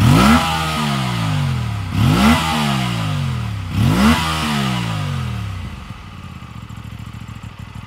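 Aprilia RS 457's parallel-twin engine with a 270-degree crank, revved from idle at standstill: three quick throttle blips, right at the start, about 2 s in and about 4 s in, each rising sharply and falling back. It settles to a quieter, steady idle near the end.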